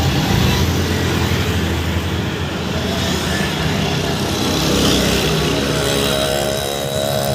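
Road traffic: scooters and motorcycles passing close by, their engines making a steady low rumble. A droning engine note joins near the end.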